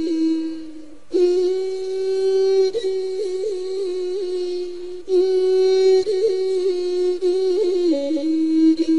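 Intro music: a single wordless voice holding long notes with quick little turns in pitch, pausing briefly twice.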